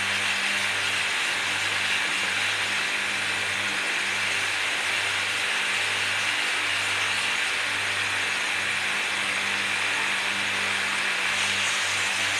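Electric motor spinning a drum sander, with a bamboo spoon blank held against the abrasive sleeve: a steady sanding hiss over the motor's low, even hum.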